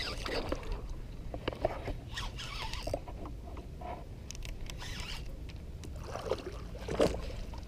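Faint scattered clicks, taps and scrapes of handling over a low steady rumble, with a slightly louder click about seven seconds in.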